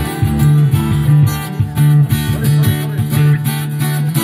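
A live band plays an instrumental passage: acoustic guitars strummed in chords over a moving low bass line, with no singing.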